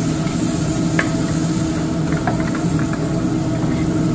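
Onions and mushrooms sizzling in a sauté pan over a gas burner, over a steady low hum, with a single light click about a second in.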